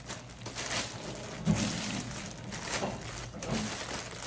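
Thin clear plastic bag crinkling in a series of rustles as a backpack is slid out of it.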